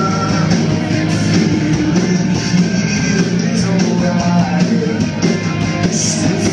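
Rock band playing live, loud and steady: electric guitars over a drum kit.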